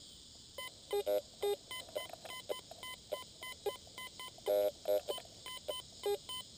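Fisher F75 metal detector giving a quick, irregular string of short beeps as its coil sweeps the ground, over a steady high insect hiss.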